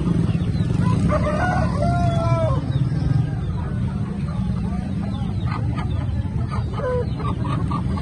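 A rooster crows once about a second in, a long call of about a second and a half over a steady low rumble; chickens cluck with short calls later on.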